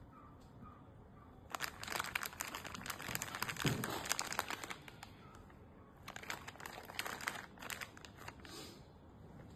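Crinkling, rustling handling noise in two spells, from about one and a half to five seconds in and again from about six to nine seconds in, with a dull knock in the middle of the first spell.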